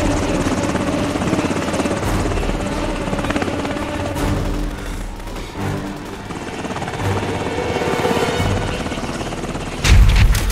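Helicopter rotor chopping fast and steady as the aircraft flies in low, with a film score underneath. A sudden heavy low boom comes near the end.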